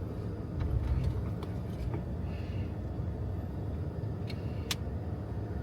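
Car on the move: a steady low rumble of engine and road noise, with a few light ticks and one sharp click near the end.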